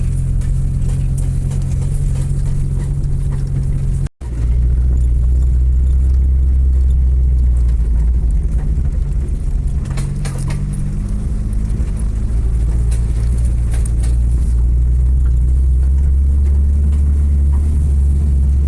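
Car engine and road noise heard from inside the cabin while driving, a steady low hum. It cuts out sharply for a moment about four seconds in, and the engine note comes back lower.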